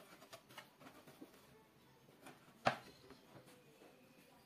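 Pieces of 9 mm plywood being handled and set down on a workbench: faint light knocks and scrapes, with one sharp wooden knock about two and a half seconds in.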